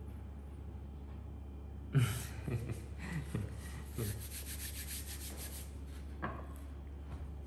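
Rubbing and scraping on a cutting board during dough work. It starts about two seconds in with a few dull knocks, turns into a quick, even rasping, and stops a little past halfway.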